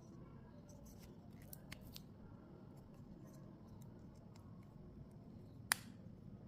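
Faint clicks and taps of small objects being handled, likely the card reader and its packaging, over a low steady hum, with one sharp, much louder click near the end.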